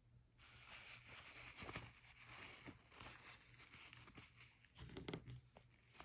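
Faint scratchy strokes of pen-and-ink drawing on paper: a dry hiss starting about half a second in, with a few sharper ticks around two seconds and again around five seconds.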